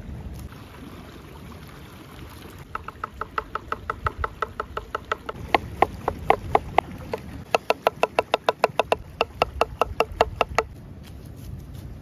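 Knife chopping gherkins into slices on a wooden cutting board: quick, even knocks of the blade on the board, about five or six a second, with a short pause midway.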